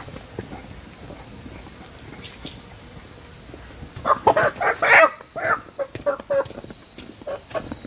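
Chickens clucking: a quick run of short calls starting about four seconds in, over a faint steady high hum.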